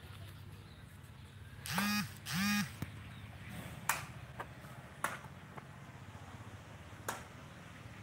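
An animal calling twice, two short calls each held on one pitch, about half a second apart, followed by a few sharp clicks over a low steady hum.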